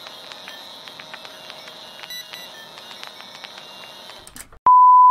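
Intro sound effects: a crackly old-film texture of many small clicks and pops over a faint steady whine. About four and a half seconds in it cuts to a loud, steady, single-pitched test-tone beep that holds.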